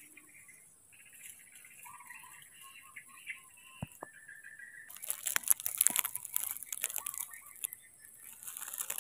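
Dry leaf litter and twigs crackling and rustling from about halfway in, a dense run of crisp crackles that comes back briefly near the end. Before that there are only faint, short high chirps.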